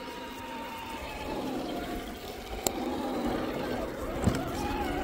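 Electric RC scale crawler's motor and gearbox whining as it crawls over rocks, the pitch rising and falling with the throttle. A sharp click a little past halfway and a knock near the end.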